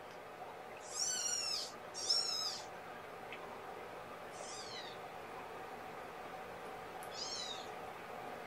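Young kittens, about two and a half weeks old, mewing: four thin, high-pitched mews that fall in pitch, two close together about a second in, one near the middle and one near the end.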